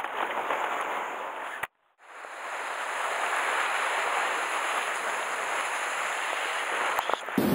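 Sea surf washing against a rocky shoreline, a steady hiss of breaking and foaming water. It cuts out briefly about two seconds in and fades back up.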